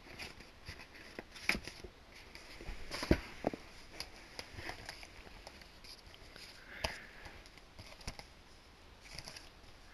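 DVD cases and their packaging being handled: scattered sharp clicks and knocks, the loudest about three seconds in, over soft rustling.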